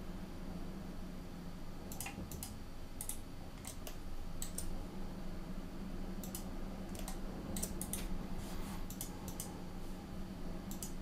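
Scattered, irregular clicks of a computer mouse and keyboard as CAD software is operated, about a dozen in all, over a low steady hum.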